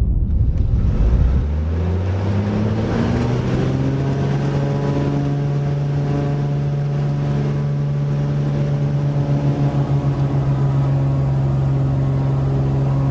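Wind buffeting the microphone for about the first second and a half. Then a single-engine bush plane's piston engine and propeller, heard from inside the cabin, rises in pitch as power comes up for the takeoff run on the snow. It then holds a steady drone, with a stretch of pulsing about two-thirds of the way through.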